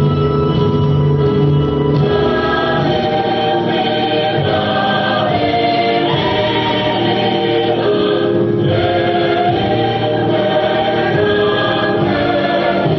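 Chorus of voices singing long held notes together over musical accompaniment, a stage musical's ensemble number.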